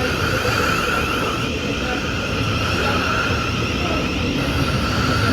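Train running close by at a station platform: a steady low rumble under a steady high whine.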